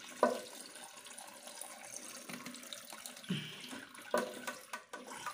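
Water rushing steadily into a toilet cistern through its fill valve (ball cock), which has just been pressed down into its seat so the water now comes in at full pressure. A couple of short knocks from the plastic valve parts being handled.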